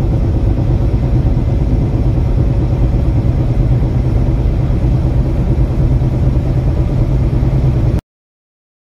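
Steady low rumble of a car driving on a wet road, heard from inside the cabin: engine and tyre noise. It cuts off abruptly about eight seconds in.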